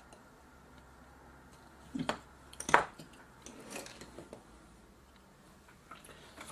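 Sharp clicks and knocks of a small metal-framed circuit board being handled and set down on a hard workbench: two knocks about two seconds in and just under three seconds in, the second the loudest, then lighter clatter and a couple of small clicks near the end.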